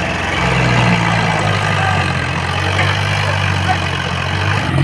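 Tractor's diesel engine running steadily, a low even engine note with no break.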